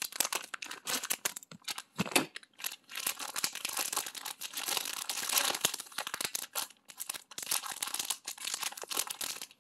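Clear plastic packaging being handled and torn open, with irregular crinkling and crackling throughout.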